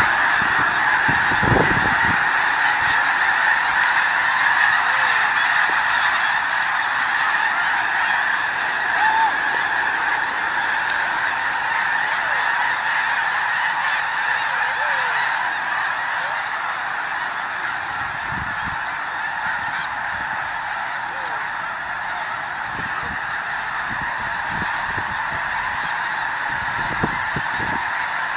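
A huge flock of snow geese calling all at once: a dense, unbroken din of overlapping honks that eases slightly in loudness over time, with a few brief low thumps.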